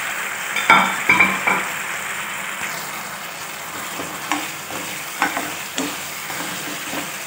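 Manchurian sauce sizzling in a pan while fried Maggi noodle balls are stirred through it. A metal skimmer and a wooden spatula scrape and knock against the pan: a cluster of knocks about a second in, the loudest part, then a few single taps later.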